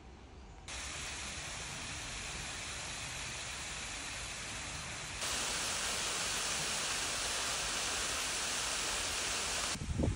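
Small waterfall splashing down a rock face into a pond: a steady rushing hiss. It starts abruptly about a second in, gets louder about halfway through and cuts off sharply just before the end.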